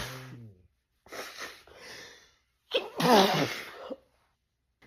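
A woman sneezing repeatedly in a sneezing fit: the tail of one sneeze at the start, softer breathy sounds, then a loud voiced sneeze about three seconds in.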